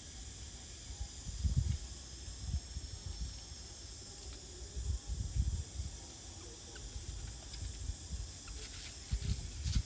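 Outdoor ambience: a steady high hiss, with low rumbles of wind buffeting the microphone several times.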